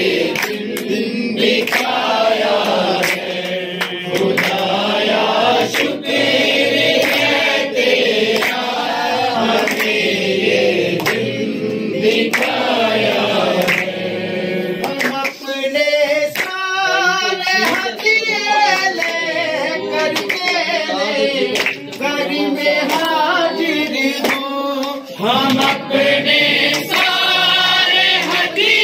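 A group of men, women and children singing together, with hand claps keeping time.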